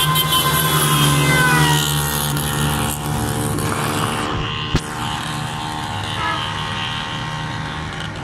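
Motorcycle engine riding out of the road tunnel and passing close by, its pitch dropping about one and a half seconds in. After it, a steadier traffic rumble continues, with one sharp knock near the middle.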